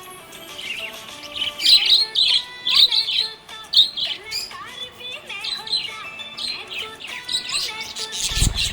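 Budgerigar chirping and warbling in a run of quick, high chirps over background music. A short low thump comes near the end.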